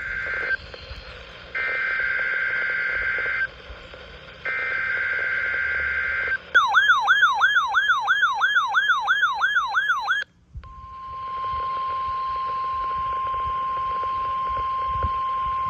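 NOAA Weather Radio Required Weekly Test alert tones: the tail of one SAME digital header burst and two more, each a harsh burst of data tones about two seconds long. Then a warbling siren-like tone sweeping up and down about four times a second for nearly four seconds, and, after a short gap, the steady 1050 Hz NWR attention tone.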